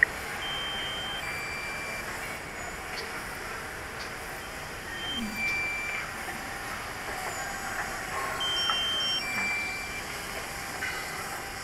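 Short electronic beeps at several different pitches, scattered every second or so, from a radio-control transmitter, over a steady background hiss.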